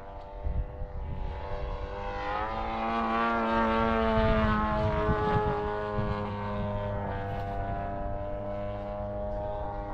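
Propeller-driven radio-controlled model airplane flying past: its engine and propeller tone swells and rises in pitch about two seconds in, is loudest mid-way, then drops a little in pitch and fades as it goes by.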